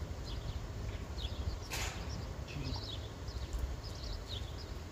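Small birds chirping in short, high calls, scattered throughout, over a steady low rumble. One short, sharp noise about two seconds in.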